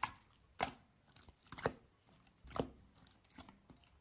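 Five sharp clicks or taps, spaced about a second apart.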